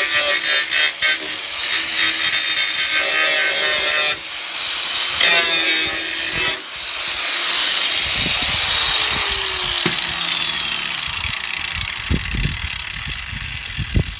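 Angle grinder working the steel of a Land Rover chassis rail, cleaning up the edge of a cut-out rust hole. It runs loud and continuous, its pitch shifting as the disc bites, with two brief breaks.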